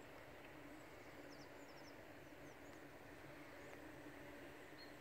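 Near silence: faint outdoor ambience with a steady low hum and a few faint, short, high chirps about a second and a half in.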